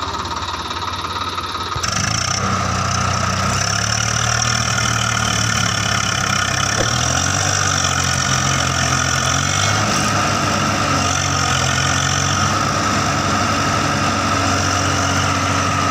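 Swaraj 744 FE tractor's three-cylinder diesel engine running hard under load as the tractor strains in deep paddy-field mud. The engine note steps up and gets louder about two seconds in, then holds steady.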